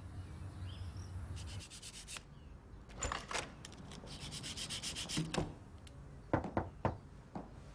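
Scratchy rubbing and scraping in short bouts, then a few sharp knocks near the end.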